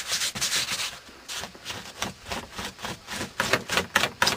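Gloved hands sweeping snow off a snowmobile's hood, a run of quick brushing swipes that grow louder and sharper near the end.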